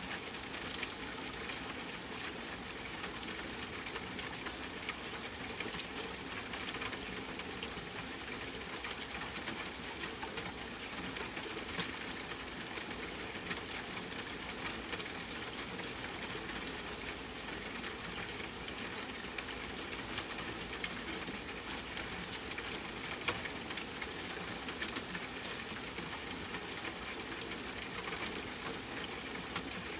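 Steady rain falling, a dense even hiss of many small drop hits with no let-up.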